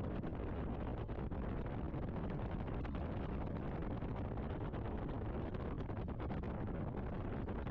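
Steady road noise of a car driving: tyre rumble and wind noise heard from inside the car, with no changes.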